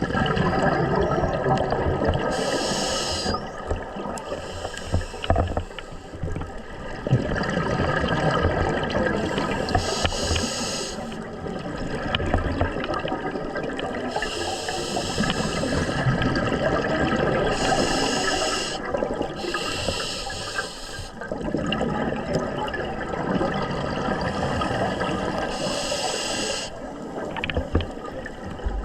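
Scuba diver breathing underwater through a regulator: a rush and gurgle of exhaled bubbles, broken several times by a short, high hiss of air on an inhale.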